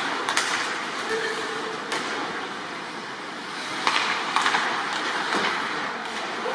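Ice hockey play heard from the stands: skates scraping and carving on the ice as a steady rushing noise, with sharp clacks of sticks and puck, the loudest cluster about four seconds in.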